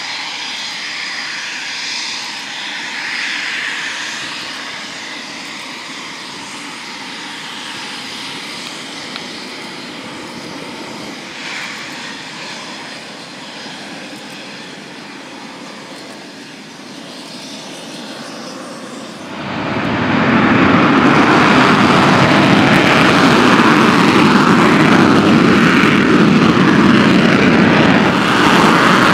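Eurofighter Typhoon's twin jet engines: a steady whine at taxi power, then about twenty seconds in a sudden jump to a much louder, deep rushing noise as the engines run up to takeoff power.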